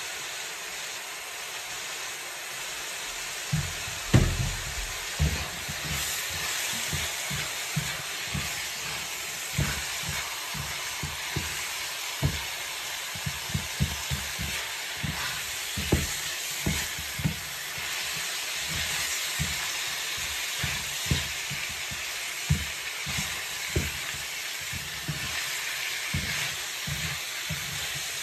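Ground meat, bell peppers and onions sizzling in a nonstick skillet. From a few seconds in, a wooden spatula knocks and scrapes against the pan again and again as the food is stirred.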